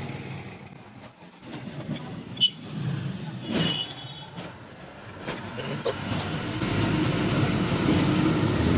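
Small metal clicks from a valve spring compressor as a valve spring and its collets are fitted on a motorcycle cylinder head, the sharpest about two and a half seconds in. From about two-thirds of the way through, a steady low rumble builds up underneath.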